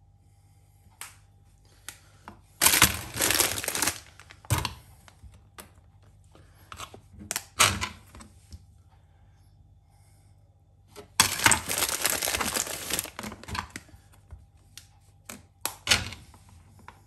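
A kitchen knife at work on sweets: scattered taps and clicks, with two longer spells of scraping about two and a half seconds in and again about eleven seconds in.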